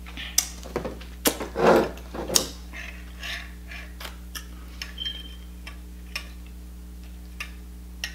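Close-miked eating-table sounds: irregular sharp clicks and taps, with a louder stretch of cloth rubbing as hands are wiped on a towel in the first few seconds, then quieter clicks and a brief squeak while a drink is sipped through a straw.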